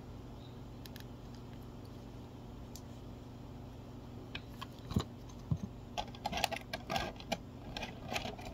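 Clear plastic figure packaging being handled: a faint steady hum at first, then from about halfway, clicks, rattles and a couple of knocks as the plastic tray and its small parts are rummaged through.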